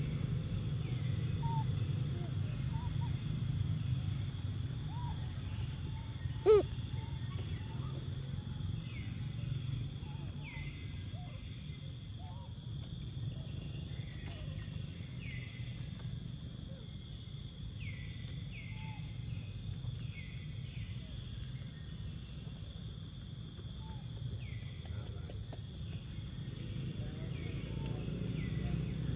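Forest ambience: a steady insect drone and a low rumble, with short calls repeating about once a second and scattered faint chirps. One short, loud, rising squeak about six and a half seconds in.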